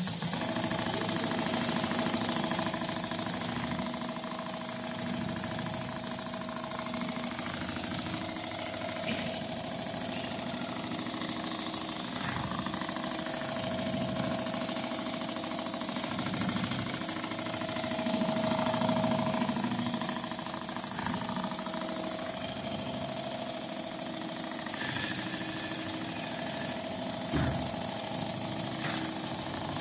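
Richpeace rotating-head sewing machine running continuously as it stitches a pattern into leather, its loudness swelling and easing every second or two.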